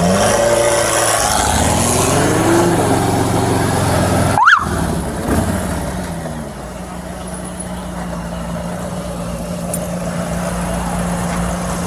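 A car engine accelerating, its pitch rising over the first few seconds, then settling into a steady low drone. There is a brief break in the audio about four and a half seconds in.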